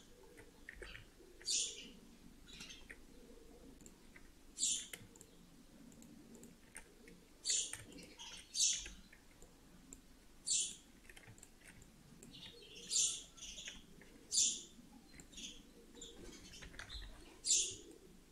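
Computer mouse clicks and keyboard key presses: about nine short, sharp clicks at irregular intervals, over a faint steady low hum.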